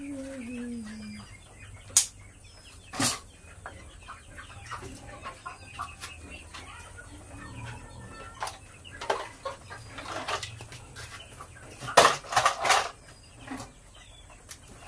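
Broiler chickens clucking, with a sharp knock about two seconds in and another a second later. A louder burst of clattering comes about twelve seconds in.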